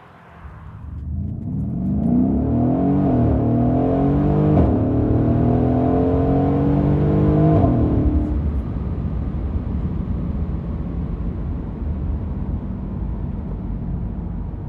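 Mercedes-Benz E63 AMG's 5.5-litre biturbo V8 through an Alpha Series performance exhaust, accelerating through the gears: the pitch climbs and drops back at each of about three upshifts. After about eight seconds it settles into a steadier drone.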